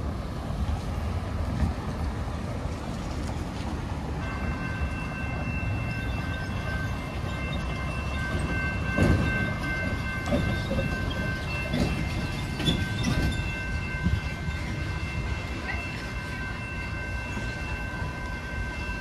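Railroad crossing warning bell ringing steadily, starting about four seconds in, as the crossing activates and the gates come down. Road traffic passes through the crossing, loudest in the middle.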